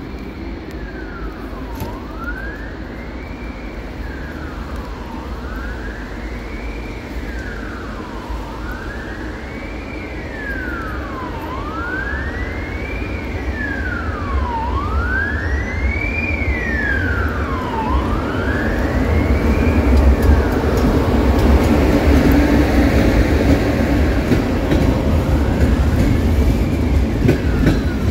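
An emergency vehicle's wailing siren, rising and falling about every three seconds and fading out about twenty seconds in. Under it a train's low rumble grows steadily louder as it comes into the station.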